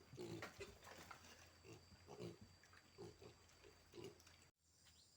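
Pigs grunting, faint, with short grunts coming roughly once a second. Near the end the sound cuts off abruptly to a quiet outdoor background with faint chirps.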